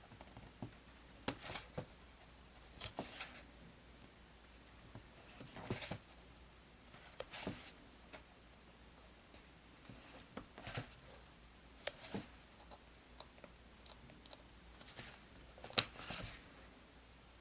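Stationery being handled while a diary page is decorated: intermittent soft rustles and light clicks of paper and stickers, with one sharper click near the end.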